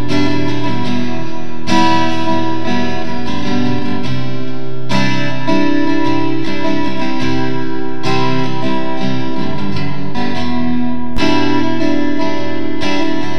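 Background music: an instrumental track led by guitar, its chords changing every few seconds.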